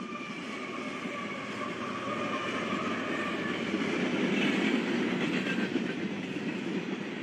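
Union Pacific freight train passing close by. The diesel locomotives go past with a steady whine over the rumble, then the freight cars roll by on the rails, growing louder toward the middle.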